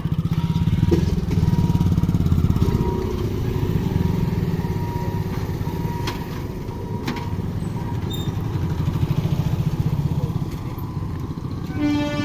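Motorcycle engines running and idling in a close, steady drone. A steady pitched tone starts near the end.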